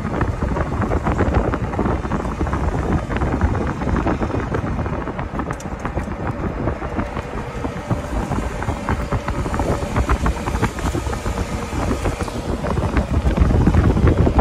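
Golf cart driving along a paved road, its running noise mixed with wind buffeting the microphone.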